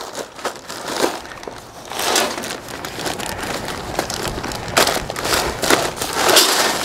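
Wood pellets pouring from a plastic zip-top bag into a pellet smoker's hopper: a steady rushing rattle from about two seconds in, with crinkling of the plastic bag.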